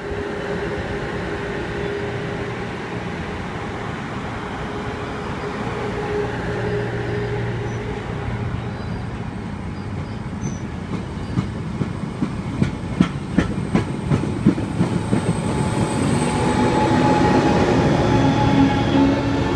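Amtrak Cascades Talgo passenger train rolling past with a steady rumble of wheels on rail. About halfway through comes a run of sharp wheel clicks over the rail joints. Near the end the train's Siemens Charger diesel locomotive comes by close and louder, its engine hum rising over the rolling noise.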